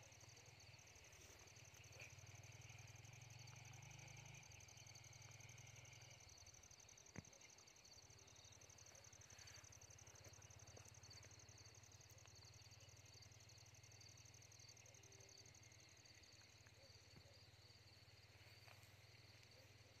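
Faint, steady high-pitched chirring of insects, likely crickets, over a low steady hum, with a single sharp click about seven seconds in.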